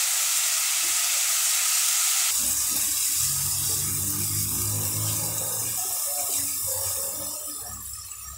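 Marinade and soy sauce sizzling in a hot metal pot on a gas stove, a steady hiss that gradually dies down over the last few seconds.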